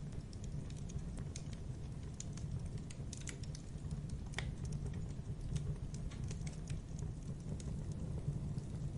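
Fire burning with a steady low rumble and irregular crackles and pops.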